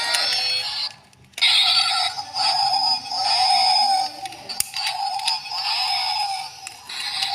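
Toy RC rock crawler's small electric drive motors whining in bursts as it is driven, cutting out briefly about a second in and then starting again.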